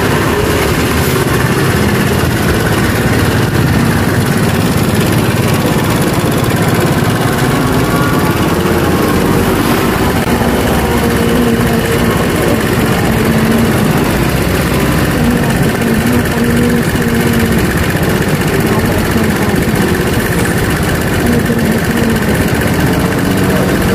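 A vehicle's engine idling steadily close to the microphone, under an even background of street traffic.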